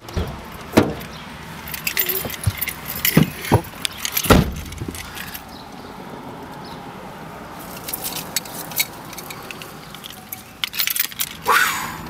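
Handling sounds of someone getting into a car: a series of knocks and clicks with metallic jangling over a low steady background, the loudest knock about four seconds in and more clicking near the end.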